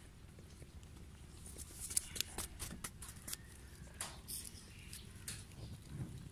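Goat kids suckling at their mother's udder: an irregular run of wet smacking and sucking clicks that starts a second or two in.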